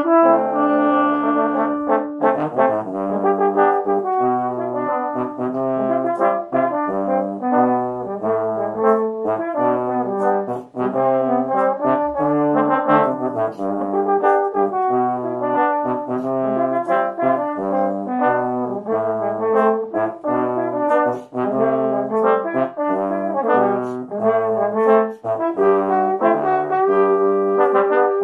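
Trombone quartet, three tenor trombones and a bass trombone, playing a pop-ballad arrangement in four-part harmony, the bass trombone holding low notes under the melody.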